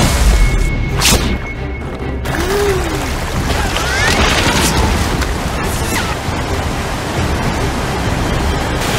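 Commercial soundtrack: music over a continuous rush of water and splashing, with a deep boom at the start.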